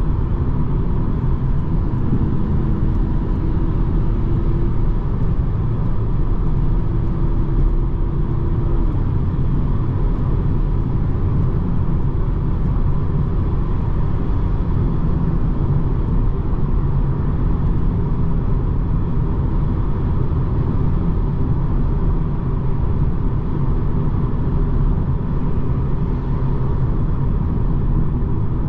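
Steady road and engine noise of a BMW 220d xDrive Gran Coupe with its four-cylinder diesel, cruising on the autobahn: an even low rumble that holds level throughout.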